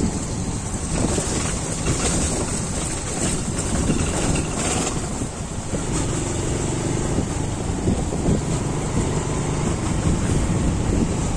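A moving vehicle's engine and road noise, steady throughout, with wind buffeting the microphone.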